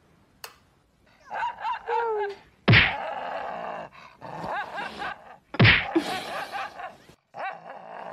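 Two heavy thumps on a bed about three seconds apart, with a voice wavering in pitch before and between them, and rustling of bedding.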